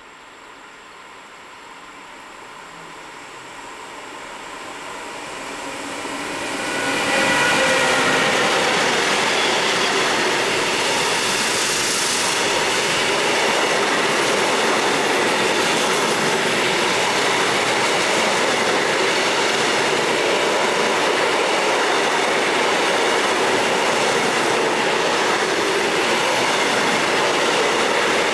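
Class 186 (Bombardier TRAXX) electric locomotive hauling a heavy container train up a gradient, growing louder as it approaches and passing at about seven seconds. After that, a long line of loaded container wagons rolls past with a steady rumble of wheels on rail.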